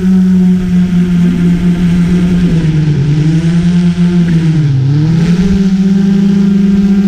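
GoPro Karma quadcopter's electric motors and propellers humming loudly and steadily. The pitch sags for a couple of seconds in the middle, lowest a little before five seconds in, then climbs back to its steady note.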